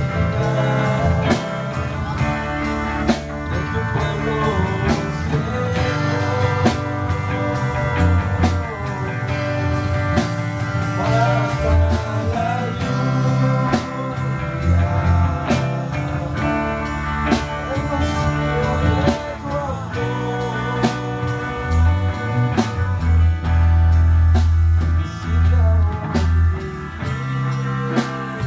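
A live band playing a rock-style worship song: electric guitars over a drum kit with a steady beat and a strong bass line.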